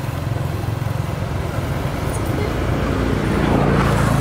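A motor engine running steadily, a low rumble with a fast even pulse.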